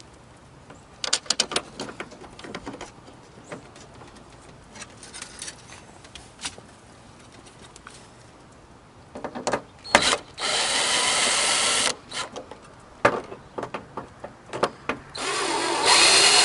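Cordless drill-driver running in two short bursts, about ten seconds in and again near the end, driving the screws that fasten the license plate flipper. Before the bursts there are scattered clicks and knocks of the hardware being handled.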